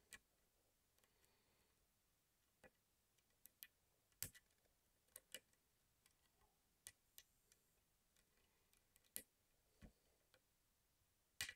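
Faint, irregular clicks of a small lock pick working the pins of a pin-tumbler lock under tension, about a dozen sharp ticks spread across near silence.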